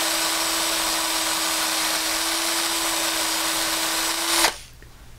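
Battery-powered hand drill with a number 31 bit running at a steady pitch, drilling slowly through the gas block as the last of the hole is cut. It stops suddenly about four and a half seconds in, once the bit has broken through to the other side.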